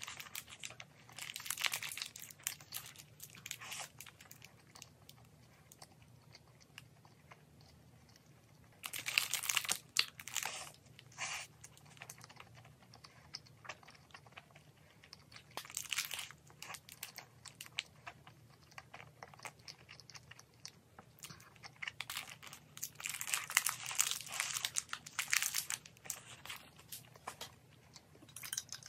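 Close-up crunching and chewing of a toasted sandwich with a crisp garlic-buttered crust. The loudest crunchy bites come in bunches about nine seconds in, again about sixteen seconds in, and in a longer run near the end, with quieter chewing between.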